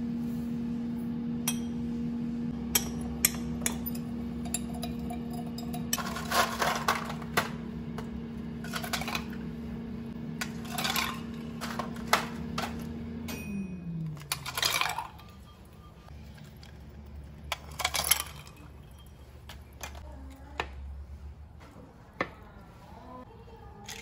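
Ice cubes dropping and clinking into glass tumblers of tea, in several clusters of sharp clinks. Under them runs a steady electric hum that falls in pitch and stops about two-thirds of the way through.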